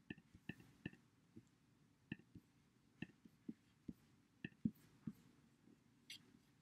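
Faint, irregular light clicks, about two a second, with a brief soft rustle about six seconds in.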